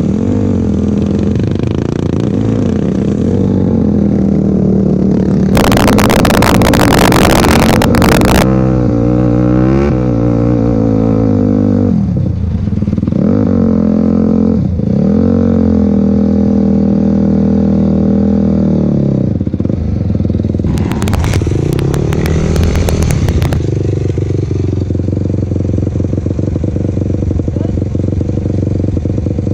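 Hybrid Yamaha YFZ250F quad engine running under the rider, its pitch rising and falling with the throttle and dropping off briefly twice in the middle. Two spells of loud rushing noise of a few seconds each break over it, and near the end the engine settles to a steady lower note as the quad comes to a stop.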